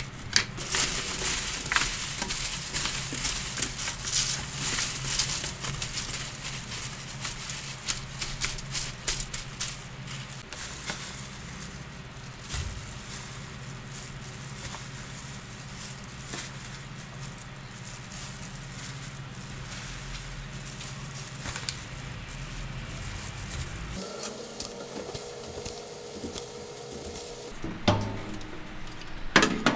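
A salt and pepper grinder grinding, a dense crackle of tiny clicks for about the first ten seconds. Then quieter handling over a steady low hum. Near the end come a few knocks and clicks as the air-fryer oven's door is pulled open.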